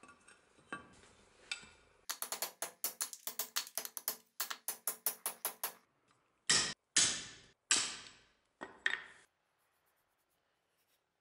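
A hatchet knocking the old wooden handle scales off a rusty butcher cleaver's steel tang. A fast run of light knocks lasts about four seconds, then come four heavier blows, each with a ringing tail.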